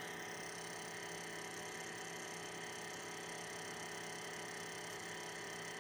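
Steady hum of a Monoprice MP Select Mini V2 3D printer idling while its nozzle and bed heat up, with no motor movement.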